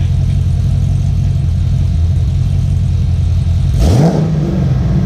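Camaro SS's LS3 V8 idling through its stock-replacement GM Performance mufflers, blipped once about four seconds in: the pitch rises quickly, then falls back to a steady idle.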